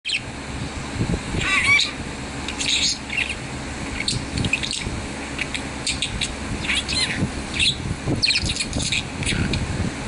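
Budgerigar chattering: a run of short, irregular high chirps and warbles, with a brief cluster of louder chirps about one and a half seconds in.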